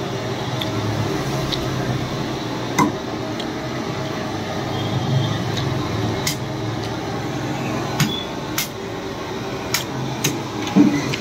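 Sparse light knocks and clicks as cut mutton trotter bone pieces are handled and set down on a wooden chopping block, about half a dozen over several seconds, over a steady low background hum.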